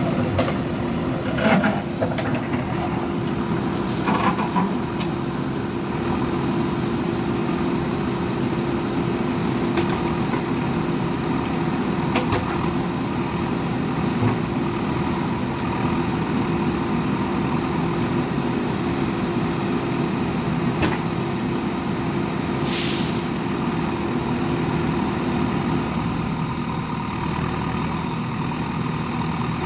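JCB backhoe loader's diesel engine running steadily under load, with a few sharp knocks scattered through and a short hiss about 23 seconds in.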